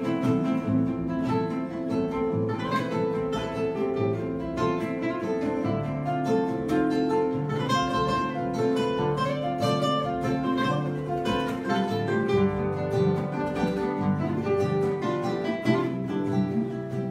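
Several acoustic guitars played together in an instrumental passage, plucked and strummed without singing.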